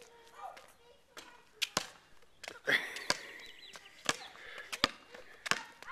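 Basketball bouncing on a concrete driveway as it is dribbled: an uneven series of sharp smacks, about one to two a second.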